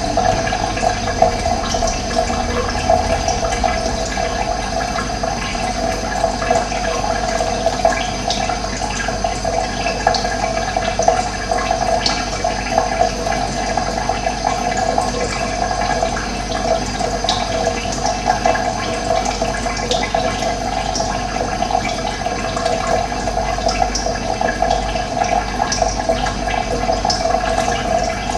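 Running water, a steady continuous flow of splashing and gurgling.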